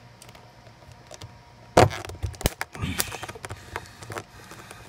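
Sharp plastic clicks and cracks as a pry tool works the plastic trim piece loose from around the inside door handle of a 1998 Buick Park Avenue. The loudest snap comes a little under two seconds in, with a few smaller clicks after it.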